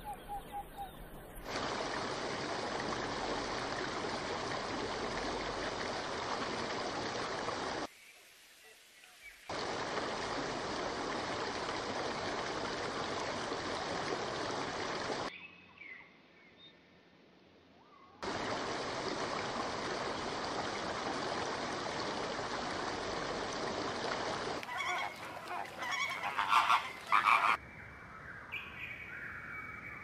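Dense, steady chorus of many calling animals, such as frogs or a bird colony, broken off twice by short quieter gaps. Near the end come sharper, louder bird calls, then gliding whistled notes.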